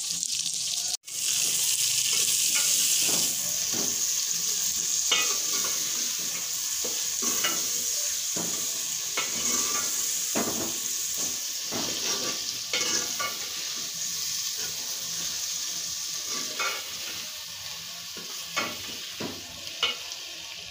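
Sliced capsicum and onion sizzling steadily in hot oil in a metal pot, with a steel ladle scraping and clinking against the pot as the vegetables are stirred.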